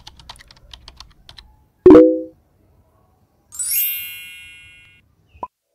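Edited title-card sound effects: a quick run of rapid clicks like typing, a loud short thud with a low tone about two seconds in, then a bright ringing chime that fades over about a second and a half, and a single click near the end.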